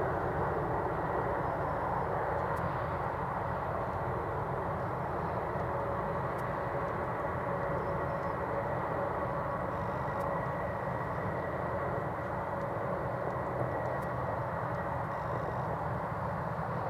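Boeing 747's four jet engines running at taxi power: a steady roar with a faint high whine.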